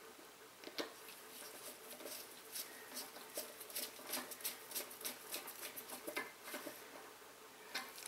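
Faint, irregular small clicks and scratches of a screwdriver being worked at the handwheel screw of a brass drain valve. The handling is busiest in the middle and falls off near the end.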